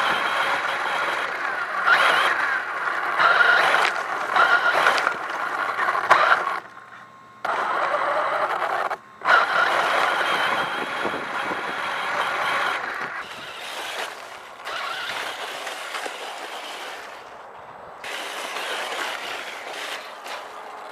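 Kyosho Inferno VE 1/8-scale electric RC buggy driving over grass and wood-chip mulch: its electric motor whines, rising and falling with the throttle, over the scrape and rattle of tyres and chassis. The sound cuts off abruptly twice, briefly, and is quieter in the second half.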